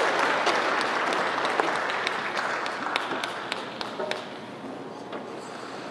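Audience applauding, a dense patter of clapping with single claps standing out, slowly dying down.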